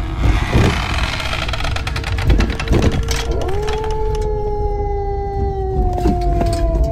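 Spooky sound-effect soundtrack: glitchy crackles over a low rumble, then about halfway through a long howl that rises quickly, holds and slowly sinks.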